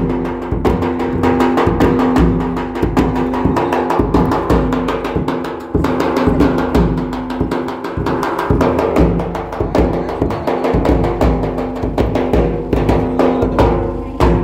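Welcome drumming: several drums beaten in a fast, dense rhythm over a steady held drone tone.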